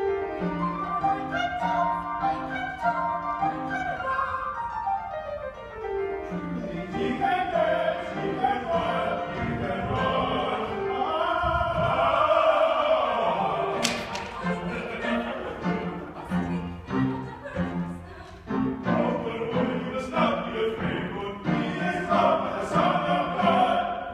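Live opera performance: singers with orchestral accompaniment. A single sharp knock about halfway through.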